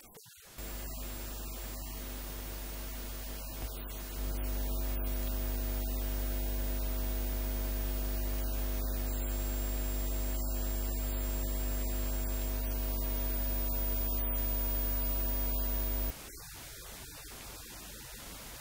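Steady electrical mains hum, a low buzz with many overtones that gets louder about four seconds in and cuts off abruptly near the end, leaving a faint hiss.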